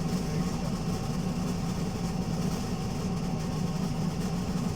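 Alexander Dennis Enviro200 MMC bus's diesel engine running with a steady low rumble.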